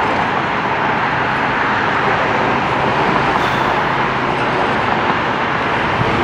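Utility truck's engine running steadily at a constant pitch, giving a loud, even mechanical noise with a low hum.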